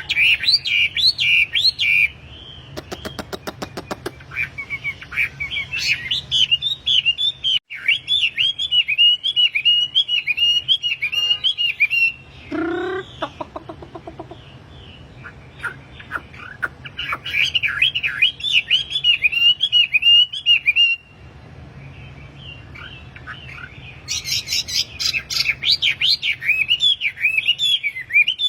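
Wambi songbird singing vigorously in bouts of fast, varied chirping phrases lasting several seconds each, with short pauses between bouts. A rapid clicking trill comes a few seconds in, and a brief lower, falling series of notes comes about twelve seconds in.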